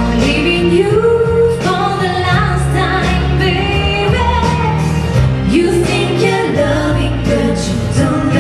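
A vocal group singing a song over instrumental backing, with the sung melody rising and falling and holding longer notes.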